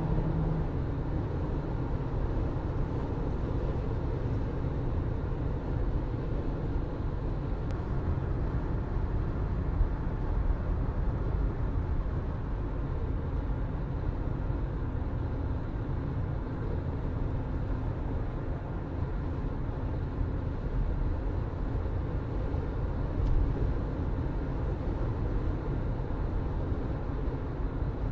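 A car driving at a steady pace: a low, even hum of the engine and rumble of the tyres on the road.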